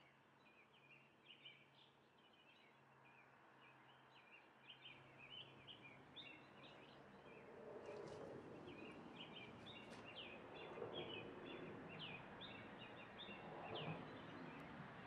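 Faint ambience with small birds chirping quickly and repeatedly in the background. A low hum stops about five seconds in, and soft rustling grows louder in the second half.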